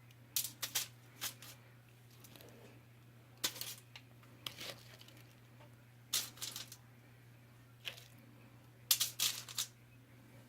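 Breaded chicken wings being set down one at a time on a foil-lined cookie sheet: short crinkles and taps of the foil, in clusters every second or two.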